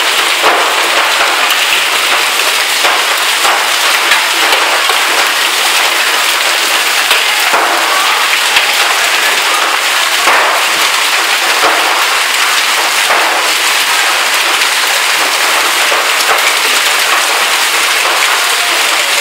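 Hail and heavy rain pelting the pavement and roofs: a loud, steady hiss with many sharp clicks of hailstones striking.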